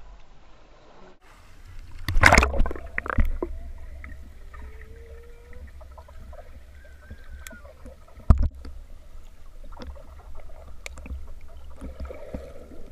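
A child plunges into a swimming pool with a loud splash, then the sound is heard from underwater: a steady low rumble with muffled sloshing, and a single sharp knock about eight seconds in.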